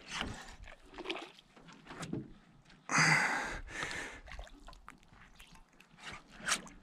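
Water splashing at the side of a small boat: one loud splash about three seconds in, with smaller splashes and drips before and after.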